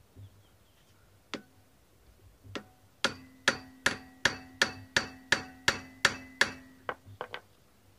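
A hammer strikes a hand impact driver against a Phillips-head brake-disc retaining screw, knocking the screw loose without rounding its head. Each blow is a sharp metallic clank with a short ring. There are two separate blows first, then a steady run of about ten at roughly three a second, then a few lighter taps.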